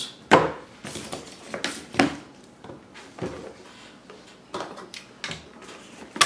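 Cardboard packaging and a plastic charger being handled and set down on a wooden table: a string of light knocks and short scrapes, with a sharper knock near the end.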